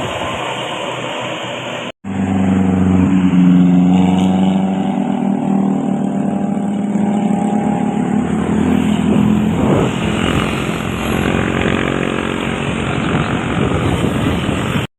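A large bus's engine drones steadily as it passes on the road, then gives way to rougher road-traffic noise. The sound cuts out completely for an instant about two seconds in.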